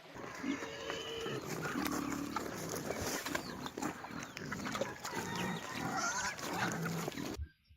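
Farm animals making short, scattered calls over a busy, noisy background; the sound cuts off abruptly near the end.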